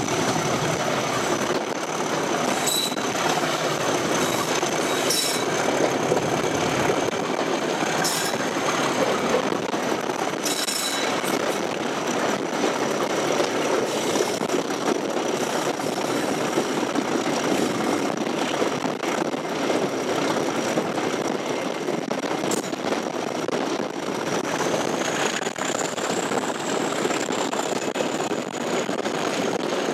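Diesel locomotive hauling a train, heard from an open window just behind it: steady engine and running noise, a few sharp clicks from the track, and a thin high-pitched whine throughout that rises slightly near the end.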